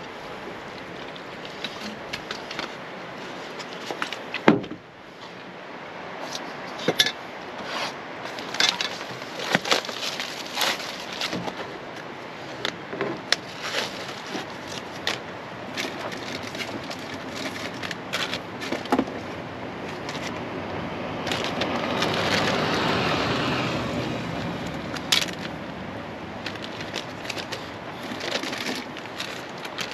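Food and kitchen things handled on a truck tailgate: irregular clicks, taps and knocks of plastic containers, a plastic cutting board and a tin can, with one sharp knock about four seconds in and a longer rustling stretch about two-thirds of the way through.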